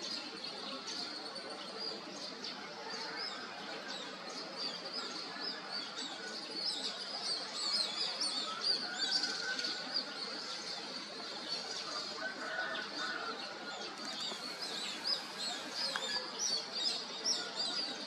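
Morning bird chorus: many small birds chirping and twittering at once in quick, overlapping calls, over a steady background hum.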